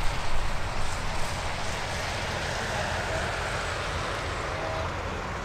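Boeing 737-800's CFM56 jet engines running at taxi power as the airliner rolls along the runway: a steady rumble and hiss, a little louder in the first second.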